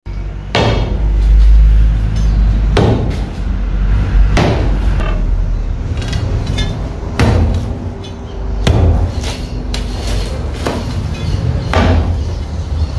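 Steel digging bar driven down repeatedly into a concrete slab to break it up. About seven sharp metallic strikes, a second or two apart.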